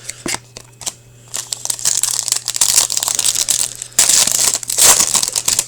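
Crinkling and tearing of a plastic trading-card pack wrapper as a pack of hockey cards is opened and handled, with a few light clicks before it; the crackle grows loudest near the end.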